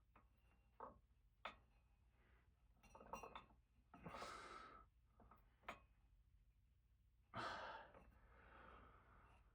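Faint breathing with two long sighs, and a few light clicks from scissors being worked on a wire's insulation.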